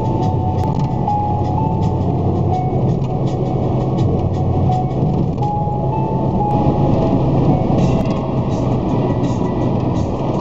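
Steady road and engine noise heard inside a car travelling at motorway speed, with a simple melody of music playing over it.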